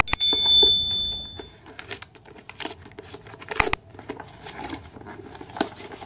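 A bright bell-like ding from the subscribe-button notification-bell sound effect at the start, fading over about a second and a half. Then brown wrapping paper and packing tape crinkle and tear as the parcel is unwrapped by hand, with a sharp rip about three and a half seconds in.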